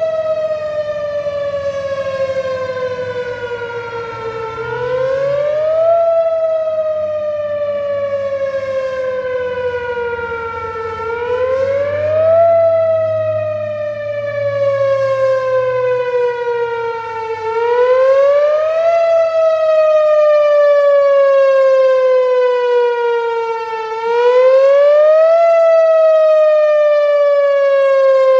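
Outdoor tornado warning siren sounding a wail, loud. Its pitch climbs quickly, then slides slowly back down, over and over about every six and a half seconds.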